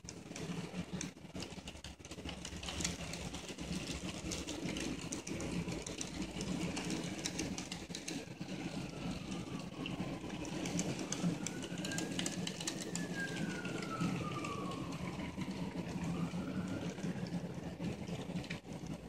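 N scale model freight train running on the track: a steady hum with continual small clicks and rattles from the passing cars. In the second half a faint whine slides down and up in pitch a few times.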